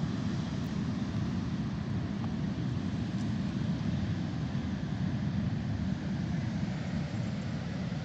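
Steady, low rumbling seaside ambience of the sea and wind, unchanging throughout.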